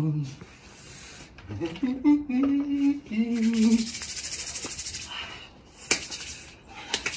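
A man's drawn-out, wordless vocal exclamations, followed by a fast, even, hissing rub of his wet hands together over a bucket of water. A sharp click comes near the end.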